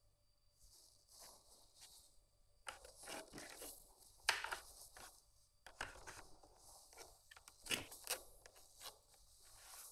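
Irregular clicks, taps and scrapes of objects being handled, with sharper clicks about four, six and eight seconds in.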